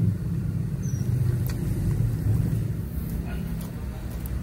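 Steady low mechanical hum, with a few faint crunches of chewing crispy fried chicken on top.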